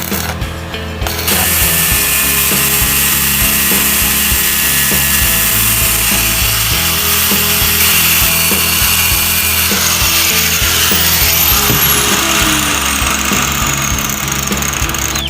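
Handheld power tool working wood, starting abruptly about a second in and running steadily, with a high whine that falls in pitch near the end.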